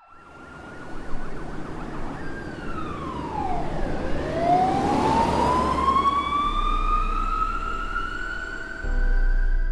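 Emergency vehicle siren in a slow wail: the pitch falls to a low point about four seconds in, then climbs steadily again, over a rushing noise.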